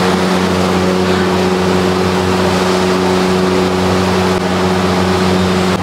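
A steady mechanical hum with a constant hiss over it, from kitchen equipment running beside the dosa griddle.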